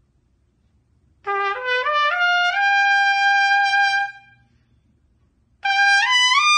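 Solo trumpet played in its middle register: a run of short notes climbing stepwise about an octave into a held note of about a second and a half. After a short pause, a second climbing run starts near the end from that top note.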